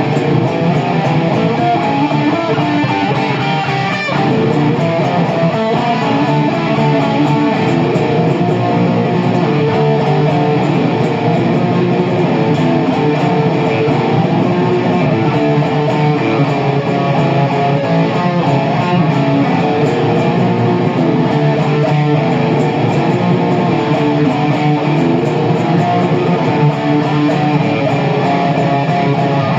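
Instrumental guitar music at a steady, loud level.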